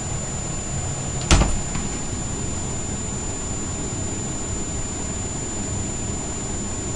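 A single sharp thump about a second in, with a smaller knock right after it, over a steady hiss of room noise and a thin constant high whine.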